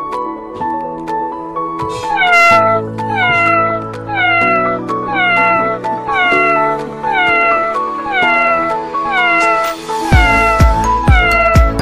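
A cat's meow, falling in pitch, repeated identically about one and a half times a second in step with electronic background music: a looped meow sample rather than a live cat. A heavy dance beat comes in near the end.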